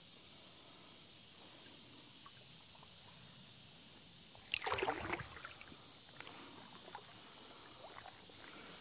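A person wading through swamp water: a burst of splashing and sloshing about halfway through, followed by a few smaller splashes, over a steady faint high hiss.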